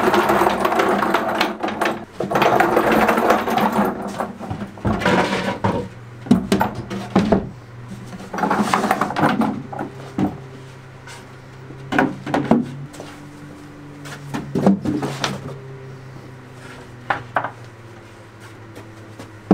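OSB panel cart on casters rolling over a brick floor, then wooden boards and OSB panels knocked and slid into it with several separate knocks. A low steady hum sets in about halfway through.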